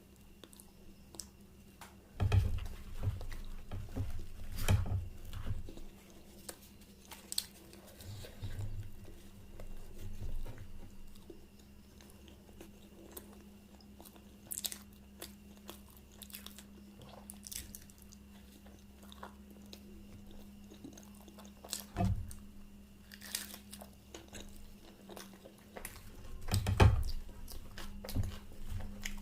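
A person eating close to the microphone: chewing and biting with wet mouth clicks and smacks in irregular bouts, with short pauses between them. A steady low hum runs underneath.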